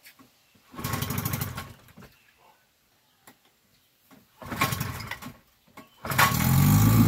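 1956 Johnson CD-13 5.5 hp two-cylinder two-stroke outboard being pull-started: two pulls of the starter cord give short bursts of sound, and about six seconds in it catches and keeps running.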